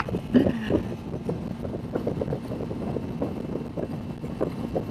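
A 300 cc sport motorcycle running steadily at highway speed, engine hum mixed with the rush of wind on the microphone.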